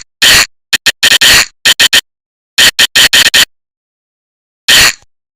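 Harsh, heavily distorted static-like noise bursts at full loudness. About a dozen short, choppy bursts start and stop abruptly over the first three and a half seconds, then one more comes near the end, with dead silence between.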